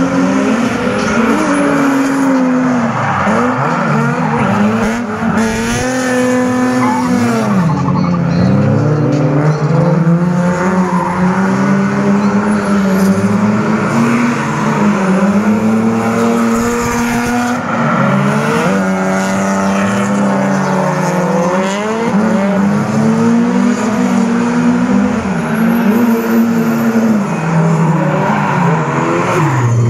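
Drift cars' engines revving hard, their pitch rising and falling over and over as the drivers work the throttle through the slides, with tyres squealing on the pavement.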